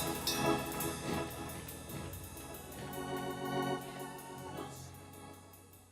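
Organ playing sustained chords that fade away steadily to near silence.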